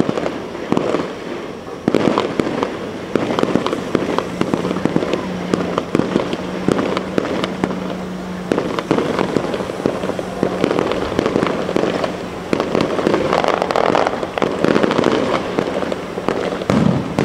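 Fireworks finale: a continuous barrage of aerial shells bursting and crackling, many sharp pops every second with no break.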